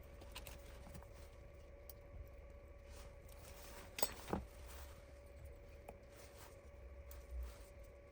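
Faint room tone with a thin steady hum, broken by two soft clicks about four seconds in and a small soft knock near the end.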